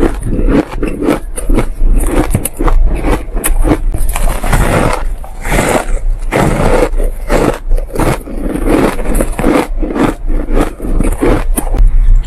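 Shaved ice crunching as it is bitten and chewed, a dense, irregular run of crisp crunches.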